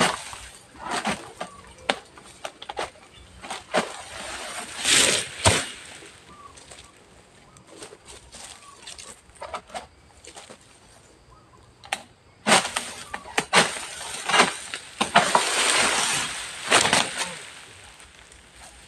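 Oil palm fronds rustling and crashing as a long-poled harvesting sickle works in the crown of a tall palm, with scattered sharp knocks. The crashing comes in two bouts, about four seconds in and again from about twelve seconds in for several seconds.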